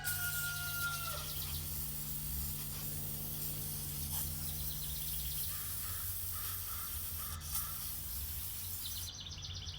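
The end of a rooster's crow, falling in pitch in the first second, then scattered bird calls over a steady low hum and hiss.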